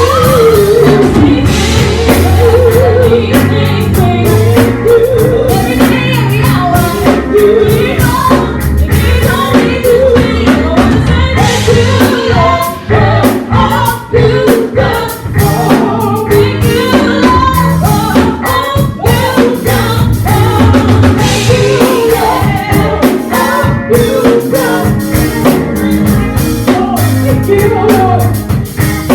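Live gospel worship music: singing over a band with drum kit and bass.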